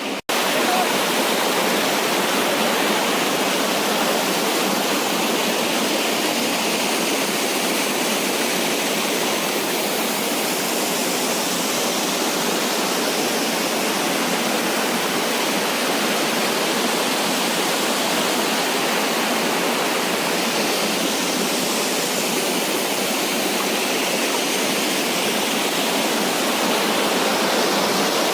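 Waterfall rushing: a loud, steady roar of falling water that holds evenly throughout.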